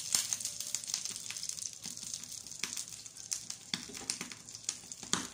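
Malunggay and egg omelet sizzling in a frying pan on a gas burner: a steady frying hiss scattered with small crackles and pops.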